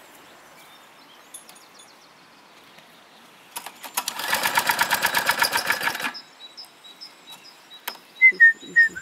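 A four-stroke lawn mower engine turns over for about two and a half seconds in rapid, even pulses, then stops without catching: a long-stored engine that will not start. A few short bird chirps come near the end.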